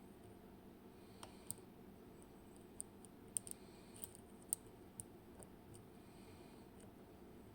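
Sparse small sharp clicks, about eight in the space of four seconds, as a dimple pick works the security pins of a WinkHaus KeyTec N-Tra dimple lock.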